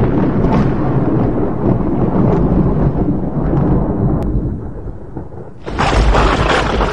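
Loud, rumbling, thunder-like noise that eases off, then a second loud burst about six seconds in that cuts off abruptly.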